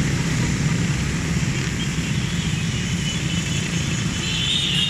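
A steady stream of motorcycles and scooters riding past: the continuous drone and rumble of many small motorbike engines.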